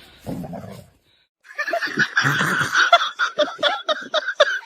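A person laughing hard in quick, breathy bursts, starting about a second and a half in after a short gap.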